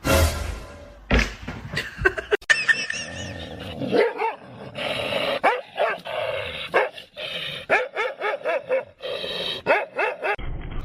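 Dog barking and yipping in many short, pitch-bending calls, with several abrupt breaks.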